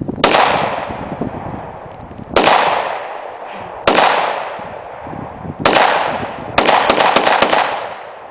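Glock pistol fired five times at uneven intervals of about one to two seconds. Each shot is a sharp crack followed by a long fading echo.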